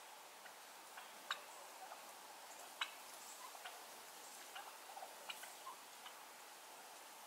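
Faint outdoor quiet with scattered sharp ticks, the loudest about a second in and near three seconds, and smaller ones about once a second. Soft short clucking chirps come from wild turkeys feeding on the ground.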